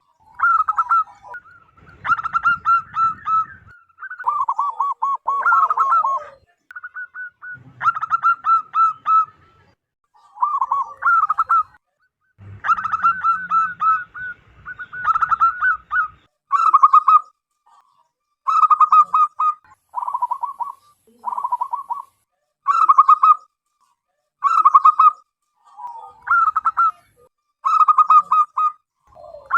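Zebra dove calling: short phrases of rapid staccato cooing notes, repeated one after another every second or two.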